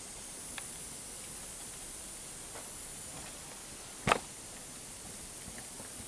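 Steady, faint, high-pitched hiss, with one sharp knock about four seconds in and a few small ticks.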